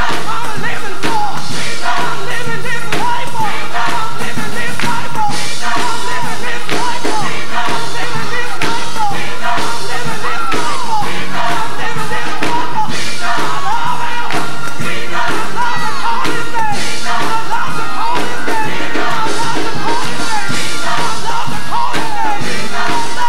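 Live gospel music: a choir and a female lead singer singing over instrumental backing with a steady beat.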